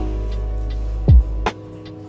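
Background music: held chords over a beat, with one deep drum hit about a second in. It drops away sharply about three-quarters of the way through.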